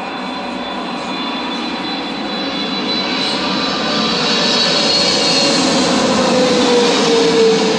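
Boeing 777-200LR's twin General Electric GE90 turbofans at approach power as the airliner passes low overhead on final approach, gear down. The jet noise builds steadily to its loudest near the end, and a high whine and a lower hum both slide slightly down in pitch as it goes over.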